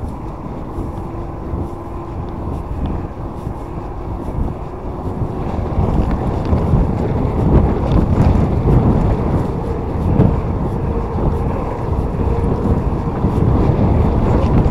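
Wind buffeting the microphone and tyre rumble from an e-bike rolling along a cycle path, getting louder about six seconds in.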